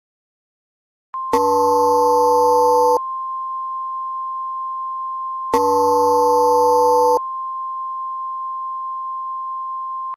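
Emergency Alert System attention signal: a steady single electronic tone comes in about a second in and holds, with two loud, lower chord-like blasts of a second and a half or so laid over it, about four seconds apart. It is the alarm that heralds an emergency alert message.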